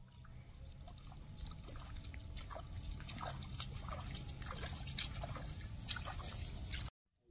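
Barefoot footsteps splashing and squelching through shallow water on a muddy path. Behind them run a steady high-pitched whine and short chirps. The sound cuts off suddenly near the end.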